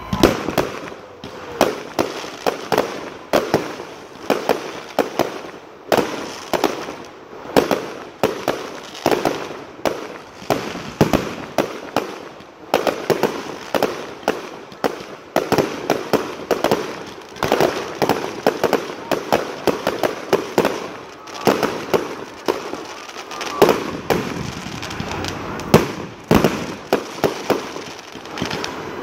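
Aerial fireworks shells launching and bursting in a rapid, continuous barrage, several sharp bangs a second.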